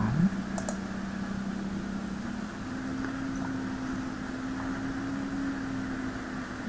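Steady low background hum of a motor or fan, with a second, slightly higher tone joining about two and a half seconds in and fading near the end. A couple of faint clicks sound shortly after the start.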